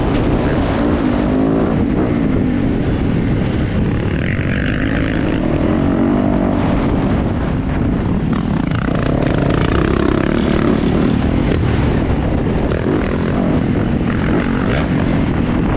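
Yamaha YZ450F four-stroke dirt bike engine running under throttle, its pitch rising and falling as the rider accelerates and backs off, heard from the helmet camera.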